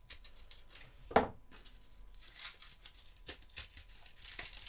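A knife slitting and hands tearing open a plastic blister pack: scratchy crackling and tearing of the plastic, with one sharp snap about a second in.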